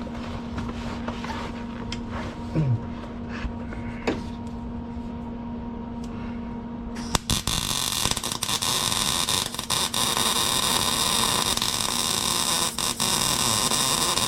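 A steady hum with a few small clicks, then about seven seconds in a MIG welder's arc strikes and runs a continuous sizzling weld, with a couple of brief breaks, as a subframe connector is welded to a car's steel chassis.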